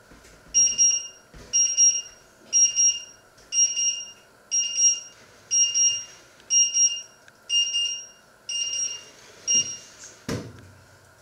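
Electric hob's alarm beeping: a high-pitched electronic beep repeating about once a second. The beeping stops near the end, followed by a single clunk of a metal pot being set down on the glass cooktop.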